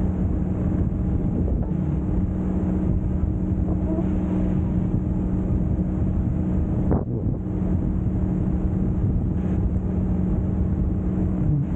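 Wind buffeting the microphone of a camera carried aloft on a parasail, over a steady low drone, with a brief dip about seven seconds in.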